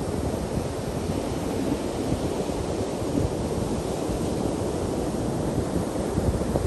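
Ocean surf breaking and washing steadily on a sandy beach, with wind buffeting the microphone.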